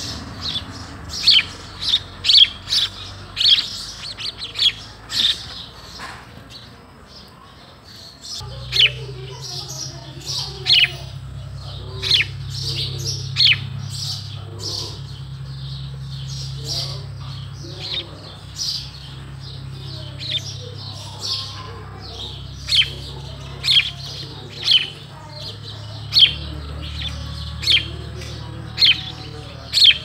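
Sparrow chirping: short, sharp chirps repeated in quick runs throughout. A steady low hum sets in about a third of the way in.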